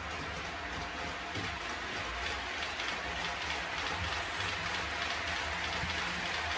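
OO gauge model freight train running along the track: a steady rolling hiss of wheels on the rails over a low steady hum, growing a little louder as the Bachmann Class 66 and its wagons approach.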